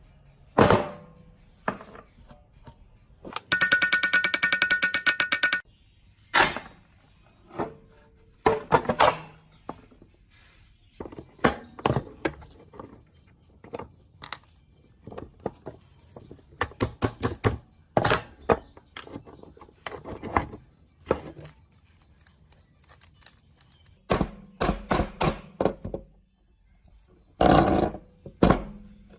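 Workshop handling of metal machine parts: a series of sharp knocks and clatters, with a buzzing mechanical stretch of about two seconds near the start.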